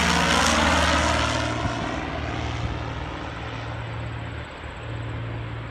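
Piper Aztec's two six-cylinder piston engines and propellers at takeoff power, a steady droning hum just after passing overhead, fading steadily as the plane climbs away.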